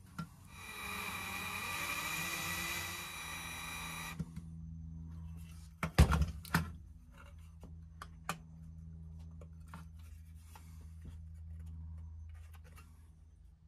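Die-cast metal toy truck body knocked down onto a cutting mat a few times about six seconds in, followed by small clicks of handling. Before that, an unidentified steady whirring hiss holding a few fixed tones lasts about four seconds and stops suddenly.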